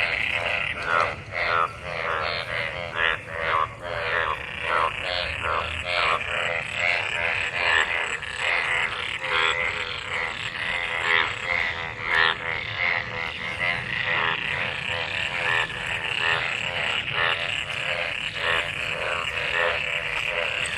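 Breeding chorus of many frogs calling together in rain-filled water after monsoon rain: overlapping, rapidly pulsed croaks repeating without a break over a steady high-pitched chorus.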